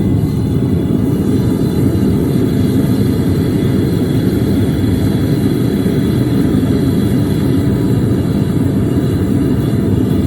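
Single-burner propane forge running with a steady burner roar, its burner newly set back out of the forge body.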